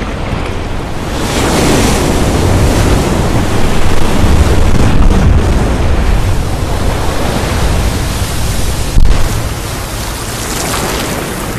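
Heavy ocean surf crashing and washing against rocks, a dense rushing noise that swells and falls, with a sharp louder crash about nine seconds in.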